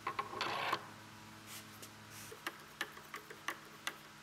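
A short scrape as the vise handle slides onto its steel shaft, then a run of light ticks, about three a second, as a screwdriver turns the screw that fixes the handle to the shaft. A faint steady hum runs underneath.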